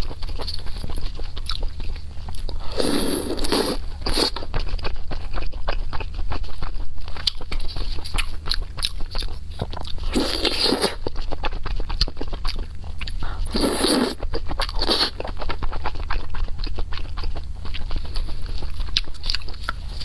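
Close-miked eating of skewered food in chili sauce: continuous wet chewing with small clicks, and three louder bites spread through the stretch. A steady low hum runs underneath.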